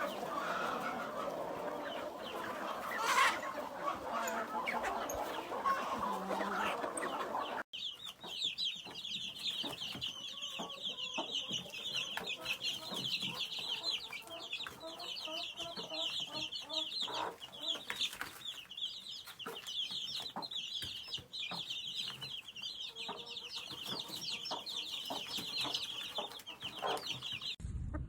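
Hens clucking for the first several seconds; then, after an abrupt cut, a brood of chicks peeping in a continuous high chorus, with scattered light taps.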